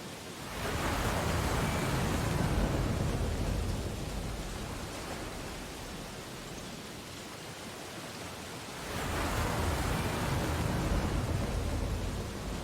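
Ocean waves breaking and washing up a beach: one wave surges in about a second in and eases off, and a second one comes in about nine seconds in.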